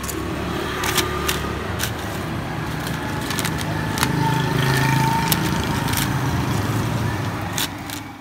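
Metal tongs clicking against a plastic basket and paper bags rustling as fried banana fritters are bagged, a sharp click every second or so. Underneath is steady street traffic that grows louder around the middle, with faint voices.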